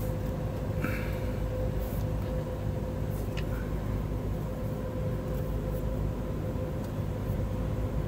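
A steady low mechanical drone with a constant hum under it, and a couple of faint short clicks, one about a second in and one about three seconds in.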